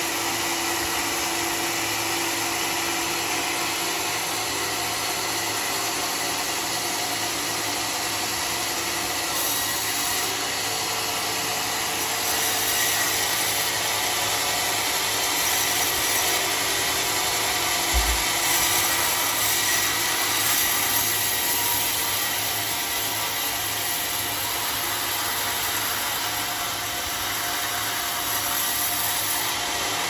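Homemade band sawmill running steadily, its blade cutting lengthwise through a large flood-soaked, rotting wadang log. A single brief low thump sounds about halfway through.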